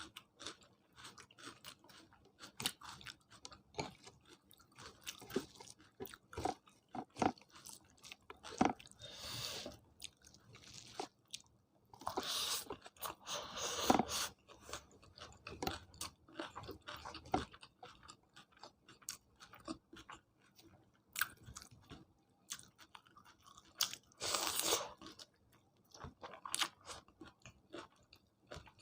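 Close-miked chewing of a meal, with wet mouth clicks throughout and several longer crunchy bites, around a third of the way in, through the middle and again near the end.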